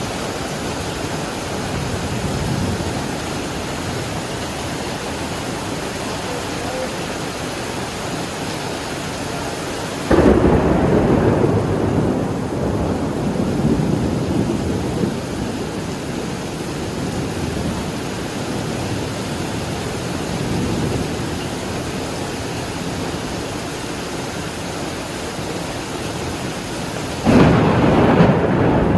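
Steady heavy rain with rumbling thunder. A loud thunderclap breaks in suddenly about ten seconds in and rumbles away over several seconds, and another starts near the end.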